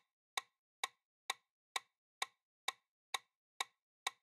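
Clock-tick sound effect of a quiz countdown timer, sharp even ticks at about two a second with silence between, marking the seconds left to answer.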